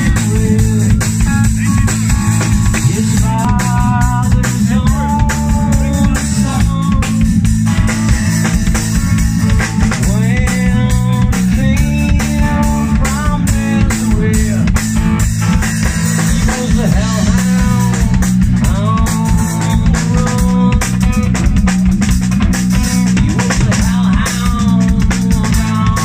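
A live rock band playing: overdriven electric guitar, electric bass and a drum kit, with a male lead vocal sung over it.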